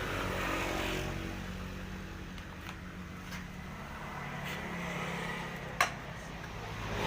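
An engine running unevenly, its pitch wavering, with a few light clicks and one sharp metallic knock near the end.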